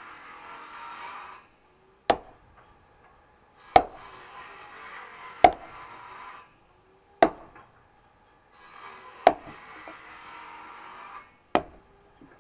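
Axe splitting firewood on a chopping block: six sharp chops, roughly one every one and a half to two seconds. A steady rushing noise comes and goes between the blows.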